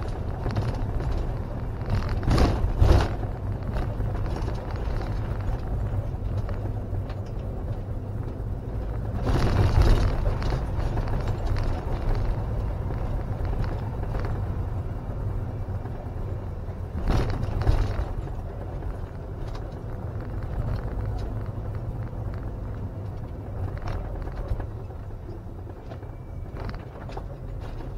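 Camping-car driving on a village street, heard from inside the cab: a steady low engine and road rumble, with three louder surges of rattling noise spread through.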